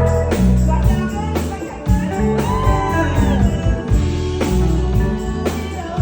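Rock music playing: guitar over heavy bass and a steady drum beat, with a gliding sung or bent note in the middle.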